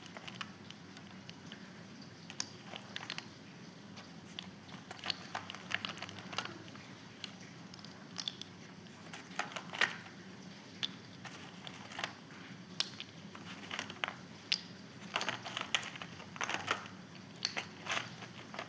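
Parcel packaging being handled and opened, with irregular crinkling, rustling and sharp little crackles and clicks.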